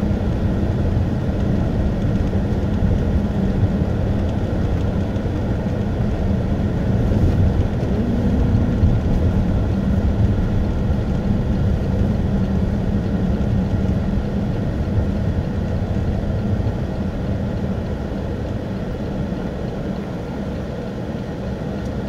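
Pontiac Grand Prix's engine and tyre noise heard inside the cabin while driving on a snow-packed road: a steady low rumble that eases slightly near the end.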